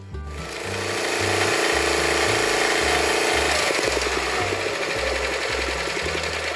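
Timberwolf TW-P1 log splitter's Honda gas engine running, its hydraulic ram pushing through a log. A steady whine sits under the engine noise for about three seconds, then gives way to an irregular crackle.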